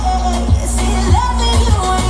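Loud pop music with a heavy bass line and a steady kick-drum beat, with held melody notes over it.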